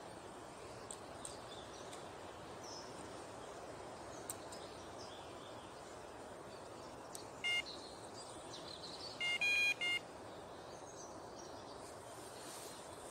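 Electronic carp bite alarm beeping: one short beep just past halfway, then a quick run of several beeps about two seconds later, over a quiet steady outdoor background.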